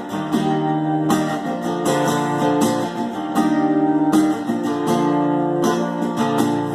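Acoustic guitar strummed in a steady rhythm, an instrumental passage between the sung verses of a song.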